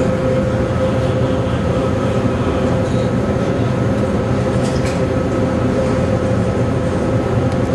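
Turbocharged 2.0-litre four-cylinder engine of a VW GTI idling steadily, heard from under the car at the exhaust.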